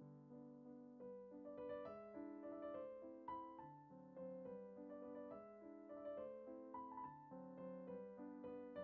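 Quiet background piano music: a melody of struck notes over held lower notes.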